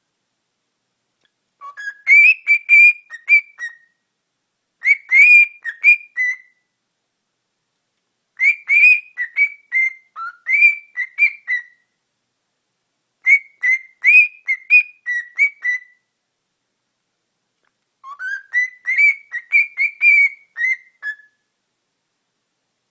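Cockatiel whistling a tune in five phrases of quick, high notes, with short silent pauses between them.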